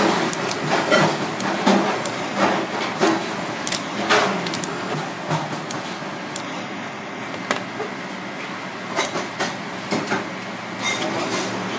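Kitchen scissors snipping and crunching through a raw lobster tail's shell, and the meat being pried and cut away, as irregular sharp clicks and crackles over steady background noise. The clicks come thickest in the first half.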